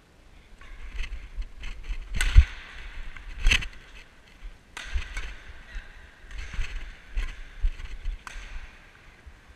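Badminton play from a player-worn camera: sharp racket-on-shuttlecock hits, the two loudest about two and three and a half seconds in, over irregular thuds of footsteps and body movement on the court.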